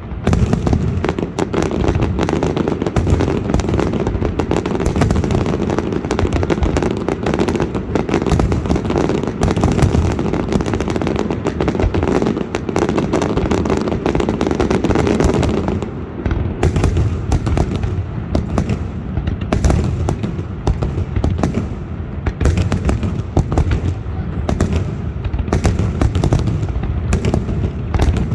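Festival fireworks exploding in a rapid, continuous barrage: dense crackling and popping over heavy booming bangs, with no pause between bursts.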